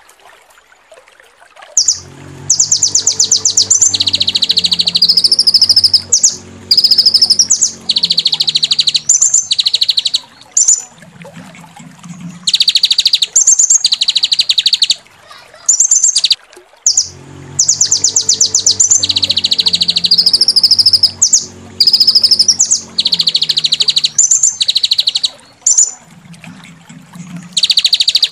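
Songbird training recording of rough, fast 'tembakan' phrases: loud bursts of rapid repeated high notes and rolling trills, broken by short pauses. A low hum runs under part of each sequence. After about two quiet seconds the run of phrases starts, and it plays again almost identically from about halfway through, as a loop.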